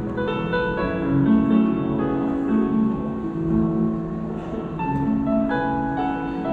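Background piano music with a chordal accompaniment: sustained notes changing every half second or so.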